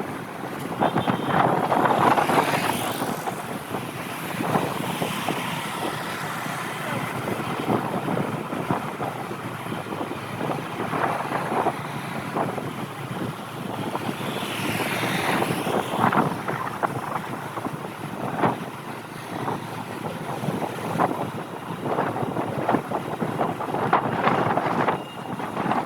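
Strong gusty wind buffeting the microphone of a moving motorbike, with the motorbike's engine and road noise running underneath. The noise swells and dips unevenly with the gusts.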